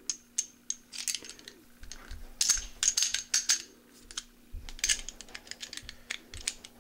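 Steel parts of a Bauer .25 ACP pistol (a Baby Browning copy) clicking and scraping together as the slide is fitted back onto the frame and lined up: irregular light metallic clicks with a bright ring, in two busier clusters.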